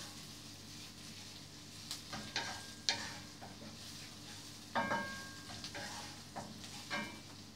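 Wooden spatula stirring onion, garlic and ginger in a frying pan, scraping and knocking against the pan now and then, over a faint sizzle of the food sautéing on low heat.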